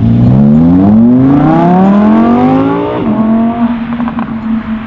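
Audi R8 V10 Spyder's naturally aspirated V10 accelerating hard, its note climbing for about three seconds. The pitch then drops sharply at an upshift and the engine carries on at a steady, lower note, with a few short clicks a second later.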